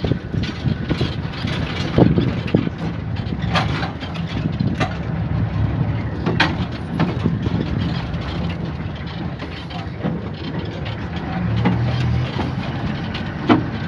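Open safari vehicle's engine running as it drives over a sandy track, a steady low rumble broken by a few sharp knocks and rattles as it jolts along.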